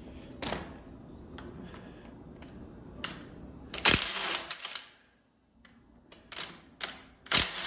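Metal clicks and knocks of hand tools working a part loose at a bicycle's crank. The taps are scattered, with the loudest cluster about four seconds in and a few more near the end.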